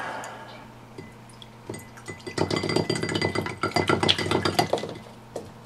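Small metal compressor parts clinking and rattling against a glass of isopropyl alcohol while being cleaned. There is a quiet stretch with a faint hum, then a rapid, busy run of clinks from about two seconds in until near the end.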